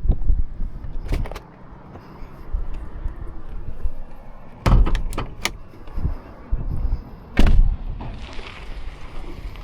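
A car's doors and fittings being handled: a sharp knock about a second in, a quick run of four clicks and thuds around five seconds, and another thud near seven and a half seconds, over a low handling rumble.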